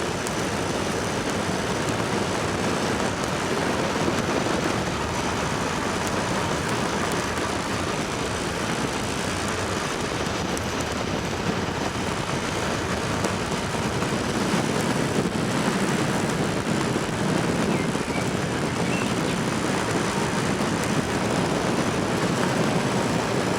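Steady rushing noise of air and rolling tyres while riding a recumbent trike along a road, with no sudden events.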